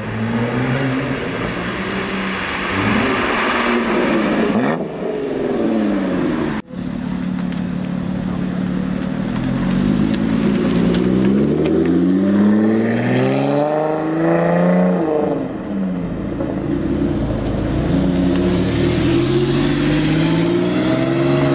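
Sports car engines accelerating hard away in several short cuts, the engine notes rising and dropping back again and again as they shift up through the gears; among them a Lotus Exige and a Porsche 911. The sound breaks off briefly twice, about 5 and 7 seconds in.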